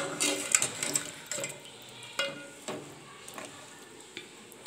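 Metal ladle stirring a watery meat-and-potato curry in a metal pot, clinking and scraping against the pot's sides several times, with short ringing after the louder knocks, which grow fainter toward the end.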